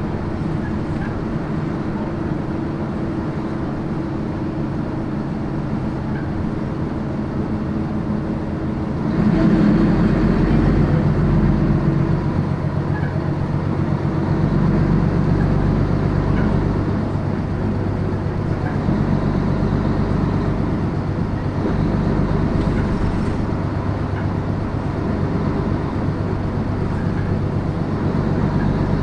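Diesel city bus's engine running with road noise, heard from inside the bus; it grows louder about nine seconds in and stays louder.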